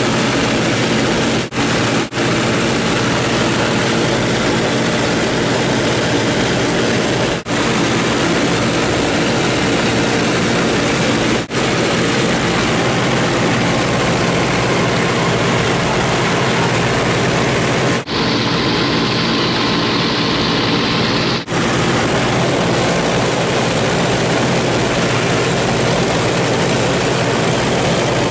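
Three nine-cylinder Pratt & Whitney radial engines of a 1929 Ford Tri-Motor droning steadily in cruise, heard from inside the cockpit. The drone is broken by a few split-second dropouts, and turns hissier for about three seconds some two-thirds of the way through.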